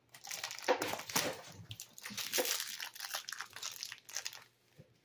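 Crinkly yellow plastic blind bag being pulled out of a cardboard box compartment and handled: a busy crackling rustle that dies away near the end.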